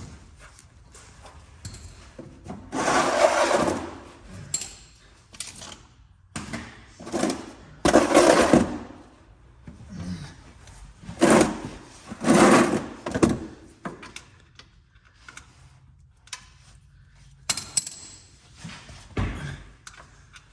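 Hand tools and parts being handled: about six short bursts of scraping and rattling, each about a second long, with quieter clicks and knocks between them.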